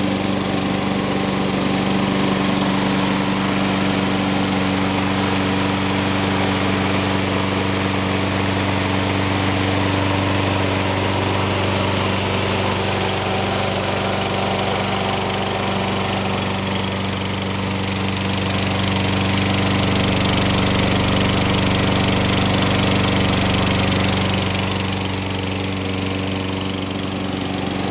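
Toro Recycler Personal Pace mower's Tecumseh 6.5 HP single-cylinder engine running steadily at constant speed, with no revving or stalling.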